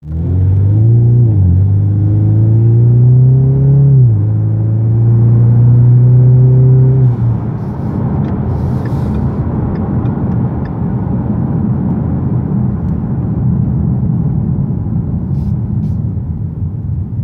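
Ford Mustang EcoBoost's 2.3-litre turbocharged four-cylinder, fitted with a Magnaflow aftermarket exhaust, heard from inside the cabin while accelerating: its pitch climbs and drops back at upshifts a little over a second in and about four seconds in. About seven seconds in the engine note fades under a steady low road rumble as the car cruises.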